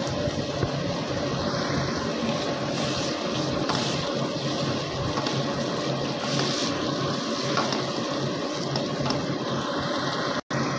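Chicken and puréed tomato sizzling and bubbling in a hot pan of oil as they are stir-fried, the tomatoes starting to give off their water. A steady low hum runs underneath.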